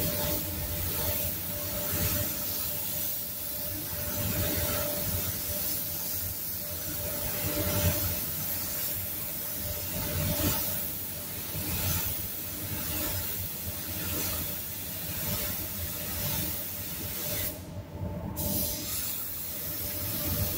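DeVilbiss gravity-feed spray gun hissing as its compressed air atomises clear coat, the hiss rising and falling in level as the gun moves. The hiss stops for about a second near the end, then resumes, over a steady hum.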